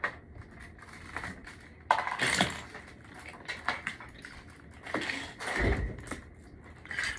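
Loose Lego bricks clattering and scraping under bare feet, with scattered footfalls and knocks, the loudest about two seconds in and a heavier thump near six seconds.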